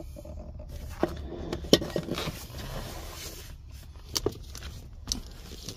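Handling noise: a few sharp clicks and light scraping as the rubber sunroof drain hose is handled beside the driver's kick panel and the camera is moved, over a low steady rumble.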